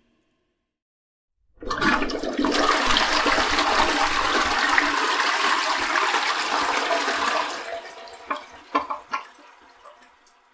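Toilet flushing: a loud rush of water starts about a second and a half in and runs for about six seconds, then dies away into a few gurgles as the flush ends.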